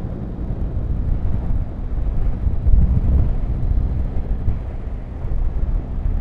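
Yamaha Tracer 9 GT's three-cylinder engine running at road speed, with a steady rush of road and wind noise; it swells a little louder about halfway through.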